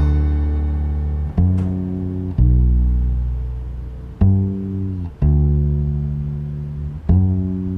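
Music: deep upright bass notes, plucked and left to ring and fade, a new note every one to two seconds.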